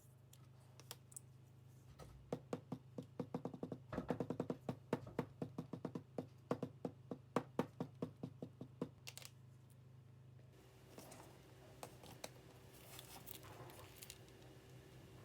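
A quick run of light taps, about three to four a second for several seconds, then a faint steady hum with light rustling.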